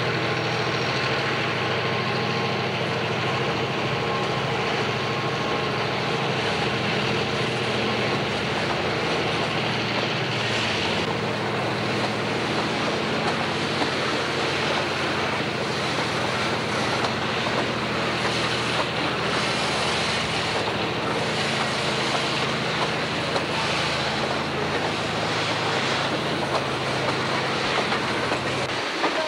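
Freight train of hopper cars rolling past at low speed: a steady rumble and wheel clatter, with a low engine drone underneath.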